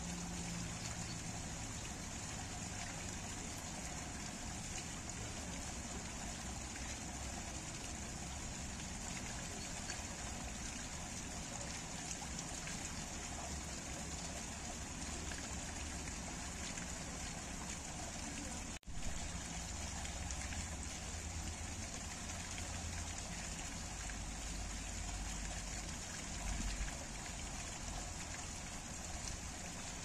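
Spring water pouring from a spout in a stone wall and splashing onto a heap of rocks, a steady trickling splash. The sound briefly cuts out once, a little past halfway.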